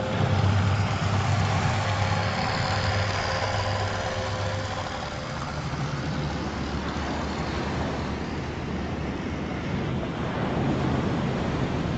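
Steady machinery drone with a low hum under a broad rushing noise, stronger in the first few seconds.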